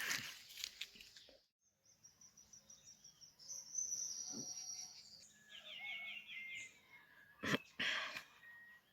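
Countryside ambience: a high, steady insect-like trill, then a bird calling in a quick run of short repeated chirps, with one sharp knock about seven and a half seconds in.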